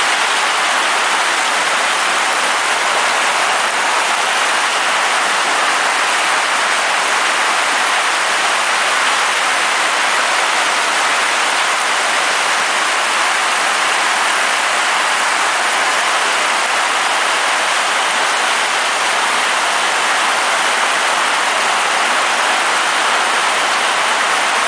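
Heavy rain falling hard and steadily, an even, unbroken hiss of downpour.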